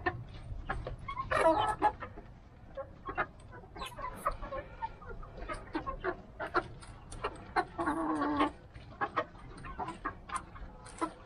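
Young Rhode Island Red chickens clucking while pecking at grain and greens, with many short taps throughout. Two longer, louder calls stand out, about a second and a half in and again about eight seconds in.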